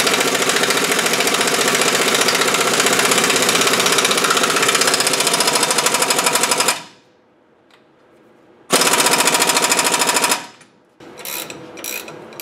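Power tool hammering rapidly in two runs, about six and a half seconds, a short pause, then about a second and a half more; a few short clicks of a hand ratchet follow near the end.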